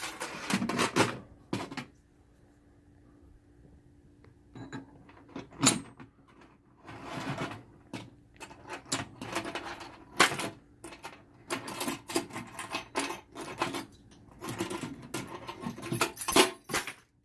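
Keys jangling and clinking against a heavy NAPEC 1300 series padlock as it is handled, a string of irregular metallic clicks and rattles. One sharp clack stands out about six seconds in, and the handling goes quiet for a couple of seconds early on.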